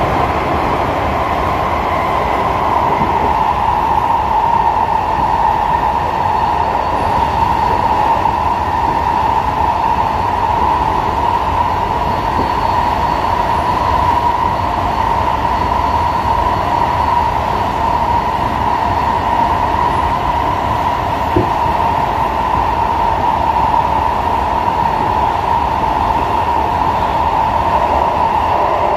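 Steady running noise inside a carriage of an SMRT C151A electric metro train moving through a tunnel: a constant hum and rumble of wheels on rail, with no change in speed.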